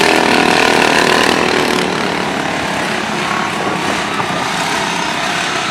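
Racing lawn mower engines running hard around the track, loudest for the first couple of seconds and then somewhat quieter as they pull away.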